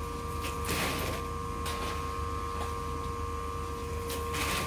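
Steady mechanical hum with two held tones, from the shrimp-boiling equipment in a steamy boiling room. Two short rushes of noise break in, about a second in and again near the end.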